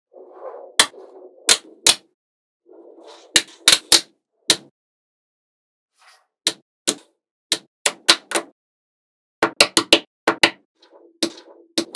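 Small magnetic balls snapping onto one another in a string of sharp, irregular clicks, coming more thickly in the second half, with a softer scraping noise between some of them.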